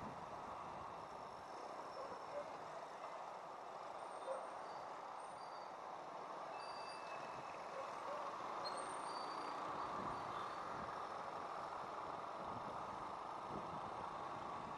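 Steady rushing wind and road noise of a motorcycle riding in town traffic, with the sound of the vehicles around it.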